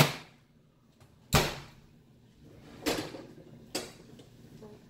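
A few short knocks and clunks of kitchenware being handled. There are four in all: the loudest at the start and about a second and a half in, then two lighter ones near three and four seconds.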